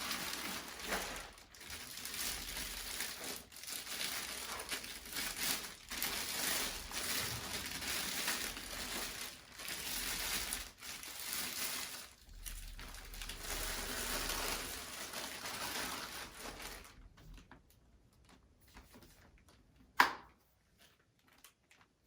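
Packaging crinkling and rustling as it is handled, stopping about seventeen seconds in. Near the end comes a single sharp knock.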